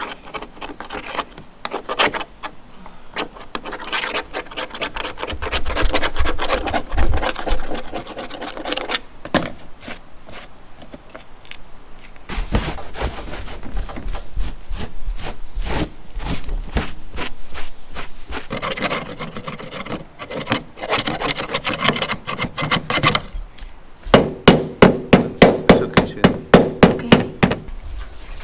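Repeated brush strokes rubbing across a roof surface as silicone sealant is worked over a seam. The strokes are irregular at first and become a fast, even run of firm strokes, about three to four a second, near the end.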